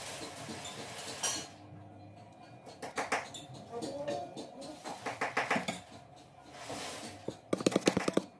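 Hand tool scraping and clicking against a shoe during shoemaking, ending with a quick run of sharp clicks about ten a second near the end.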